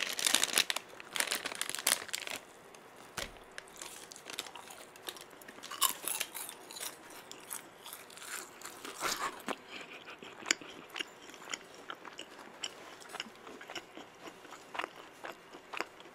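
Packet rustling for about the first two seconds, then crisp crunching bites and chewing of a pink stick snack close to the microphone, as separate crunches with pauses between.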